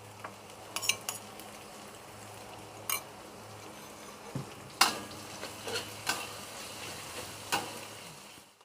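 Pounded shallot, garlic, ginger and lemongrass sizzling quietly as they are stir-fried in a pan. A utensil scrapes and clatters against the pan about six times.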